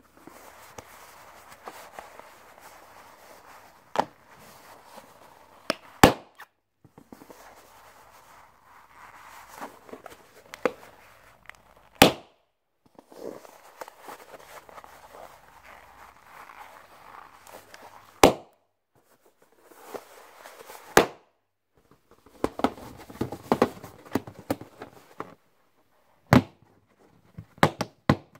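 Small latex balloons squeezed and rubbed in the hands, popping one after another with loud sharp bangs, about six in all, with softer rubbing and stretching of the rubber between pops. Near the end a larger balloon is squeezed, with a run of small crackles.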